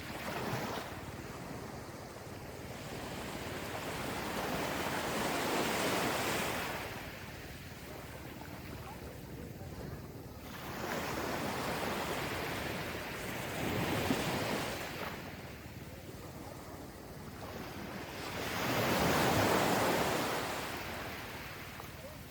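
Gentle ocean waves rolling onto the shore, the wash swelling and fading in slow surges every few seconds.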